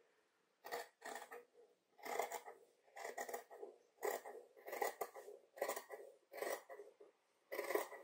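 Metal dressmaking shears cutting through two pinned layers of fabric: a steady series of snips, roughly one every half to one second.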